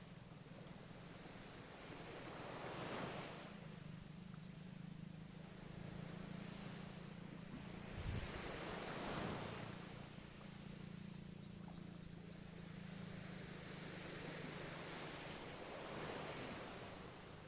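Ocean waves breaking and washing in, swelling about every five to seven seconds (three surges), over a steady low rumble.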